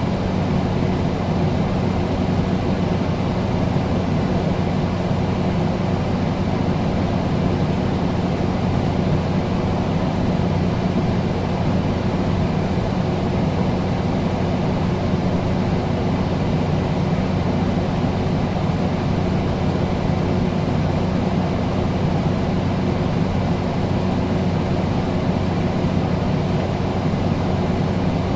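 Air conditioner running steadily: an even rush of air from the fan with a constant low hum underneath.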